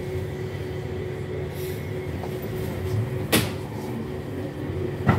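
Steady hum of a metro car's equipment while the train stands with its doors closed. A sharp clunk comes about three seconds in and another near the end as the train gets ready to pull out.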